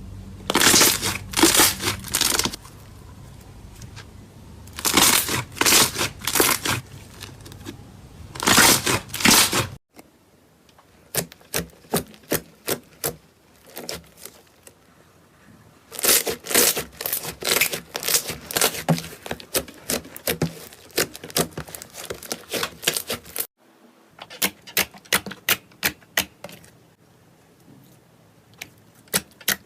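Slime being squished and worked by hand, making crackling, popping clicks. It comes in several separate clips: first bursts of dense crackling, then scattered sharp pops, then steady crackling, then pops again.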